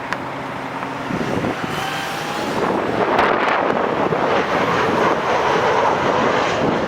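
Narrow-body jet airliner on landing approach passing close by, its engine noise growing louder about three seconds in and staying loud, with wind buffeting the microphone.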